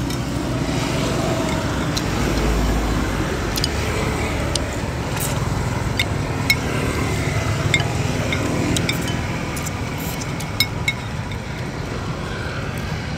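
Steady low rumble of road traffic, with scattered light clicks of a metal spoon and chopsticks against a soup bowl.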